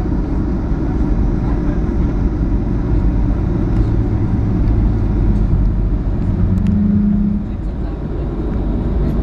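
Steady deep rumble of a Boeing 737-500's CFM56 jet engine and airframe, heard inside the cabin beside the engine. A low hum joins in about a third of the way through and stops about three-quarters of the way in, where the noise eases a little.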